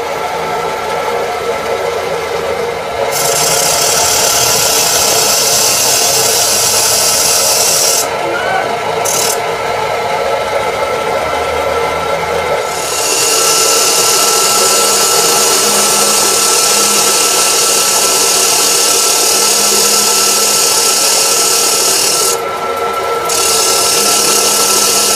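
Metalworking machine running steadily with a humming motor, overlaid by long spells of harsh, hissing metal cutting that start about three seconds in and stop briefly around eight seconds and again near the end.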